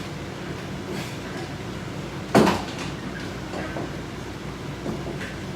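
Exercise equipment knocking: one sharp clank about two seconds in, then a couple of lighter knocks, over a steady low hum.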